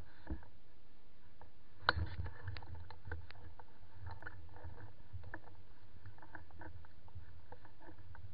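Handling noise from a camera mounted on a shotgun being carried: a steady low rumble with scattered clicks and knocks, the sharpest about two seconds in.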